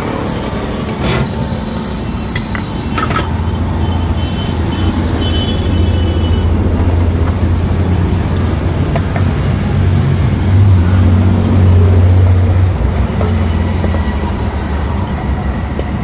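Busy road traffic close by: vehicle engines running, with a heavy low engine drone that swells in the middle and eases off near the end. A few sharp clicks come in the first three seconds, and a brief high-pitched tone sounds about four seconds in.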